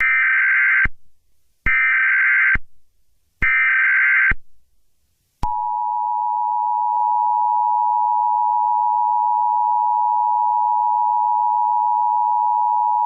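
Emergency Alert System tones: three short bursts of the SAME digital header, a rapid buzzing warble about a second long each with brief gaps between, followed about five seconds in by the steady two-tone EAS attention signal, which holds unbroken. Together they signal the start of an emergency alert broadcast.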